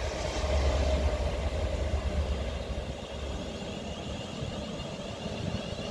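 Class 67 diesel locomotive's two-stroke V12 engine running as the locomotive moves away, fading steadily; its deep low note drops off about three seconds in.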